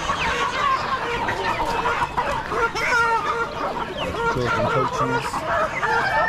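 Many caged chickens and roosters clucking and calling over one another in a continuous, dense din.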